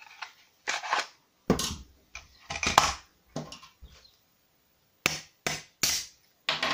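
Short, sharp clicks and knocks of a 3D-printed plastic prop pistol being handled and taken apart with a small screwdriver, about a dozen separate sounds with gaps between them, the loudest near the middle.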